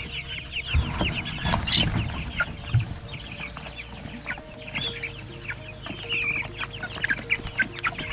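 A flock of chickens calling, many short, falling peeps and clucks overlapping without a break, with a few low thumps in the first three seconds.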